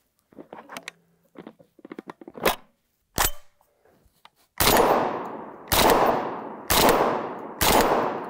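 Panzer BP-12 semi-automatic 12-gauge bullpup shotgun: light metallic clicks of handling and two sharp clacks from the action, then four shots of birdshot about a second apart, each echoing and dying away, the gun cycling on its own after a feeding malfunction.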